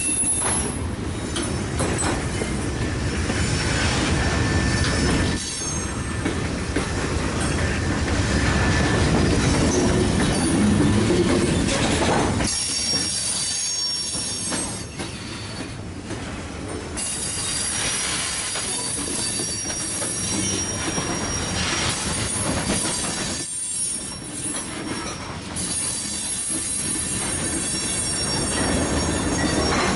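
Freight train of covered hopper cars and a centerbeam flatcar rolling past, its steel wheels running on the rails with a thin squeal at times. The sound dips briefly a couple of times as the cars go by.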